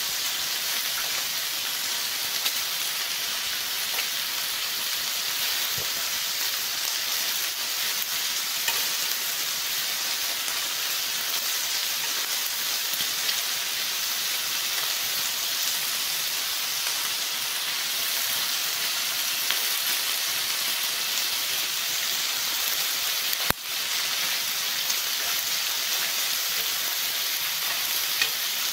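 Pork belly slices sizzling steadily as they fry on a hot griddle, with a few light clicks and one sharp click about three-quarters of the way through.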